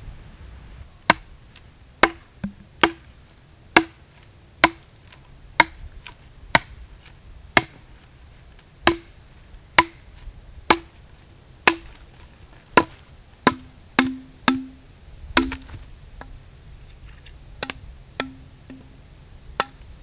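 Machete chopping into a green bamboo stalk: sharp strikes about once a second, each leaving a brief low ring. The blows come quicker, about two a second, for a stretch near the middle.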